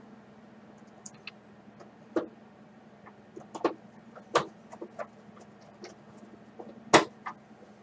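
Irregular clicks and knocks of screws and a screwdriver on the plastic base plate of an upright vacuum cleaner as the screws are put back in, with one sharper knock near the end.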